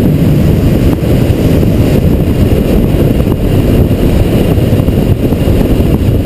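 Suzuki V-Strom DL1000's V-twin engine through a Two Brothers aftermarket exhaust, running steadily and extremely loud as the motorcycle is ridden through a tunnel.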